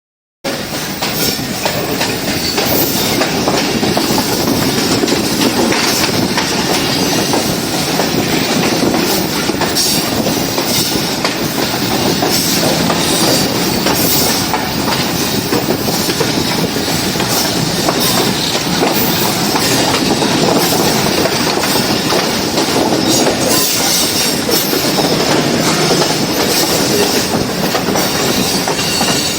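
Express passenger train running at speed: a steady rumble of wheels on the track, with wheels clacking over rail joints and some high wheel squeal.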